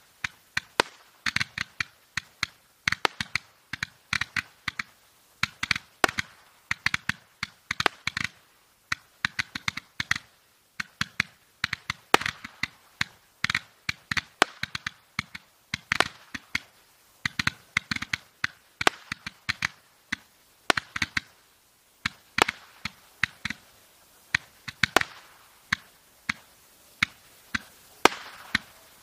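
Bubble Blaster Roman candle firing shot after shot: sharp pops about two to three a second at uneven spacing, with a hiss from the burning stars between them. The shots stop just before the end.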